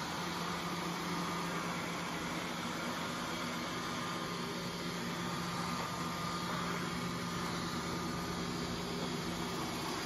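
Roborock robot vacuum running as it drives across the floor: a steady whir from its fan and motors, with a low hum and a faint higher whine.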